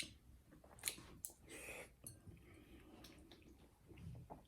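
Faint wet chewing and lip smacks as a person eats a mouthful of canned collard greens, with a few short clicks scattered through.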